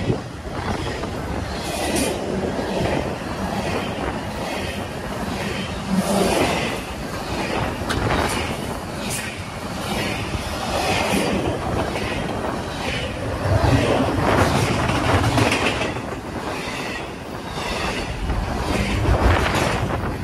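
CSX double-stack intermodal freight train's container well cars rolling past at close range: a steady rumble of the cars with repeated clicks of the wheels over the rail joints.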